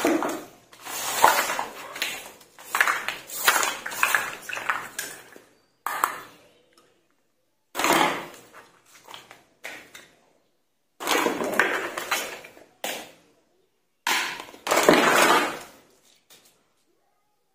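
Small plastic toy kitchenware (cups, pans, a toy stove, a plastic basket) clattering and clicking against each other and the tabletop as the pieces are picked up and set down, in about six bursts with silent gaps between.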